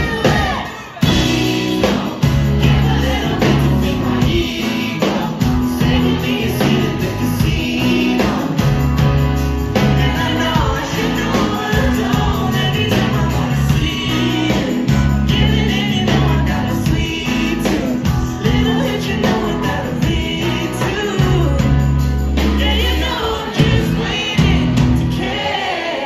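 Live rock band playing a song: electric guitars, drum kit and keyboard under sung vocals, with deep bass notes and a steady beat.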